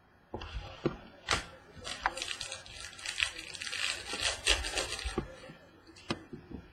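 Trading cards and their plastic packaging being handled: a few sharp clicks, then about three seconds of crinkly rustling, then two more clicks near the end.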